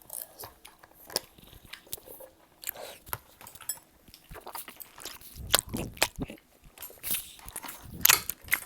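A person chewing a mouthful of malatang close to the microphone: a string of short, wet mouth clicks and smacks, with a few louder, denser bursts of chewing past the middle.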